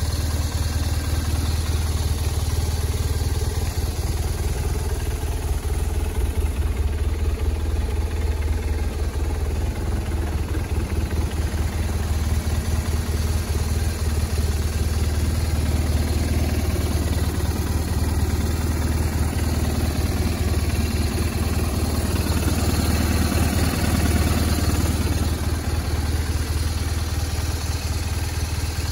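BMW R1200RT-P's 1200cc boxer twin engine idling steadily.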